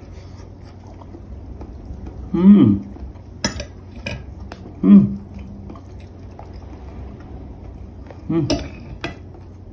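A few light clinks of cutlery on a plate while a man eats. Three short hummed voice sounds break in, about two and a half, five and eight and a half seconds in, with a low steady hum underneath.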